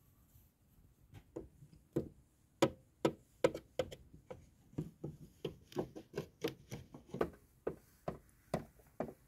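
Pretend footsteps made by tapping a small plastic toy figure's boots on a dollhouse floor: a run of light taps, two or three a second, starting about a second in.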